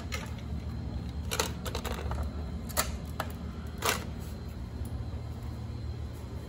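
A steady low hum with a few sharp clicks and ticks scattered through the first four seconds.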